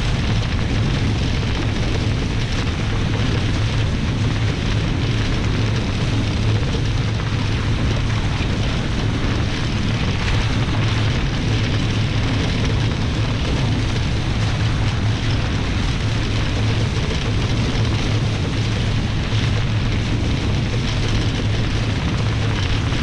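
Wind buffeting the microphone and water rushing past the hulls of a Nacra 20 catamaran sailing fast downwind under spinnaker: a steady, loud rushing noise with a deep rumble underneath.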